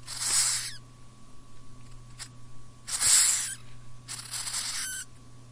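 Cockroach hissing: three short hisses, the last two close together, over a steady low hum.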